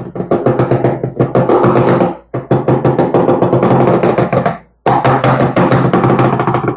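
Metal dental flask being knocked and vibrated so the freshly poured plaster settles into it: a fast, loud rattle over a steady hum, cut off briefly twice.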